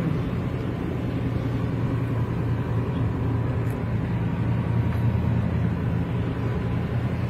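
Steady low rumble of a Nissan sedan's engine and tyres on the road, heard from inside the cabin while driving at a constant speed, with a faint steady high hum behind it.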